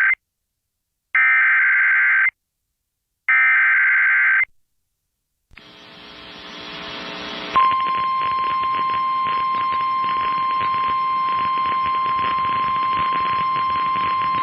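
Emergency Alert System warning signal: two harsh, warbling data bursts about a second long, a second apart (the SAME header repeats). A hiss of radio static then swells, and about halfway through a steady single-pitched warning alarm tone cuts in and holds over the static.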